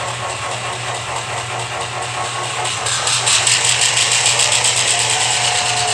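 Sound decoders of two Rapido HO-scale SD10 model locomotives playing diesel engine sound through their small speakers: a steady low engine hum with a fast, even chug. About three seconds in it grows louder, with a harsher high rattle.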